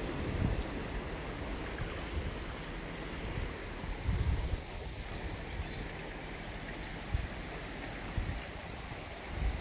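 Shallow lagoon stream running over sand and rocks toward the sea, a steady rushing of water with surf washing behind it. A few short low thumps break in.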